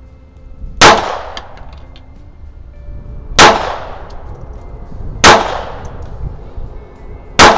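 Four shots from a JP Sauer & Sohn Model 38H pistol in .32 ACP, fired about two seconds apart, each trailing off in a short echo.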